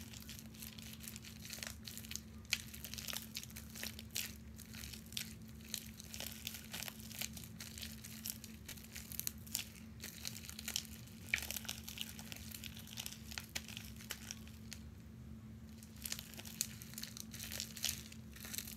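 Freshly activated clear glue slime being kneaded and squeezed by hand, making irregular sticky clicks and crackles, with a short pause about three-quarters through; the slime is still clumpy and not fully mixed. A steady low hum runs underneath.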